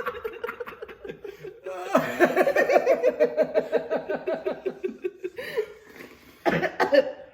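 People laughing hard, in long runs of quick pulses that fade away and pick up again, with a short loud burst near the end.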